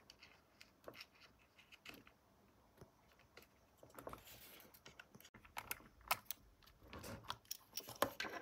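Faint, irregular clicks and taps of hands handling small parts: a USB charger module being fitted onto a panel of the battery pack, getting busier with knocks and rustling in the second half as the panel is moved and turned over.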